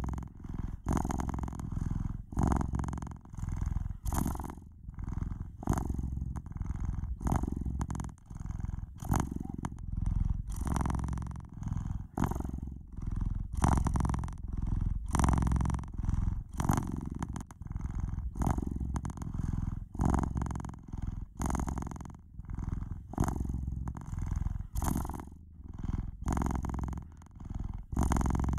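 Domestic cat purring steadily, a deep purr that swells and fades in a regular rhythm with each breath in and out.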